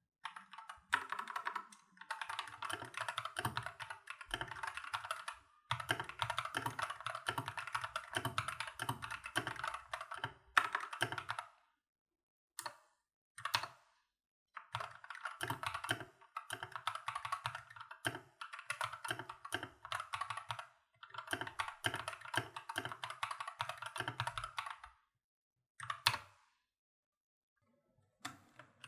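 Typing on an AKKO 3084 mechanical keyboard with AKKO CS Matcha Green switches: fast runs of key clacks lasting a few seconds each, separated by short pauses, with a few single keystrokes. Near the end, after a brief pause, typing starts again on a Keychron K12 with Gateron Brown switches.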